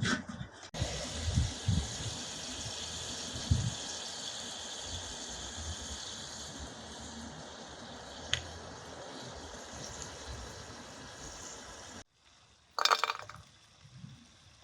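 Water running steadily, stopping abruptly after about eleven seconds, with a few dull knocks in its first few seconds. A short clink follows about a second after the water stops.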